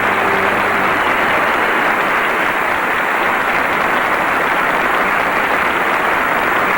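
Concert audience applauding steadily at the end of a song, with the band's last held chord dying away in the first second.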